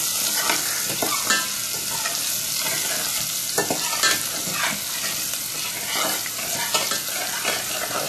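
Onion and garlic sizzling in hot oil in a stainless steel saucepan, with a metal spoon scraping and clicking against the pan as it is stirred.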